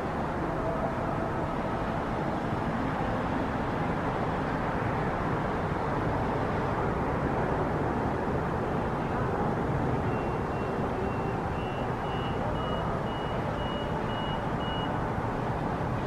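Steady hum of distant city road traffic. About ten seconds in, a row of short high electronic beeps sounds about twice a second for roughly five seconds.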